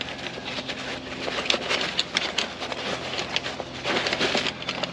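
Aluminium poles of a Trekology folding camp chair clicking and clattering as the frame is put together: a steady run of irregular light clicks.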